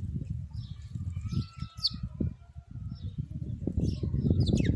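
Small birds chirping, a scatter of short high calls over a louder low rumbling noise.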